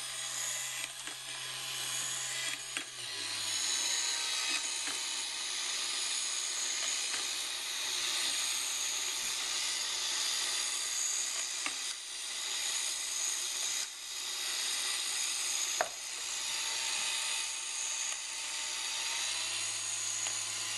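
Motor-driven Geneva drive running steadily and quietly, its cam and ball-bearing follower indexing a six-slot Geneva wheel. A few light clicks come through.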